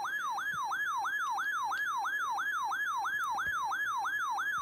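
RadioShack 12-996 weather alert radio sounding its warbling alert siren after a tornado warning has set it off. The tone sweeps up and down, about four times a second, at an even level.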